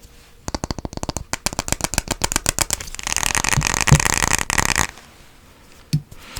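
Fast tapping on a hard object, a rapid string of taps. About three seconds in it gives way to scratching for under two seconds, then it goes quieter with one more tap near the end.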